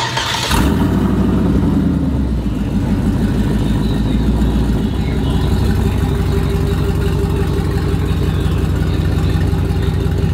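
Chevrolet Silverado single cab's engine running on open long-tube headers with no exhaust pipes behind them, a loud, steady low note as the truck rolls slowly. The sound comes in about half a second in, with a little more body over the first couple of seconds.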